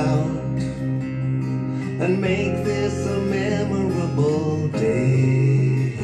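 A recorded song playing through an instrumental passage without lyrics, led by acoustic guitar over a sustained low note.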